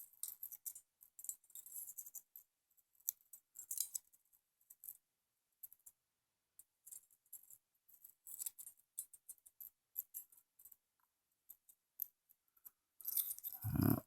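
Light metallic clicks and ticks of small parts being handled: an AR-15 charging handle and its extended latch and spring being fitted together by hand. A louder, lower handling knock comes near the end.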